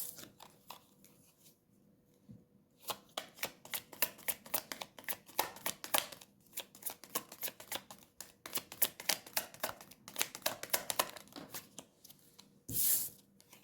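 A deck of tarot cards being shuffled by hand: a long run of quick card flicks and clicks. A brief, louder rustle comes near the end as a card is drawn.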